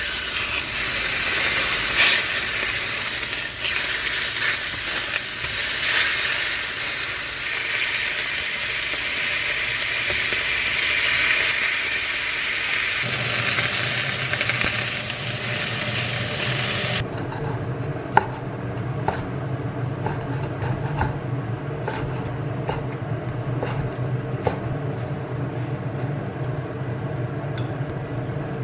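Beef steak sizzling loudly in a hot nonstick frying pan, starting as the meat goes in. About two-thirds of the way through the sizzle cuts off suddenly, leaving a steady low hum and light clicks of tongs setting pieces onto a salad plate.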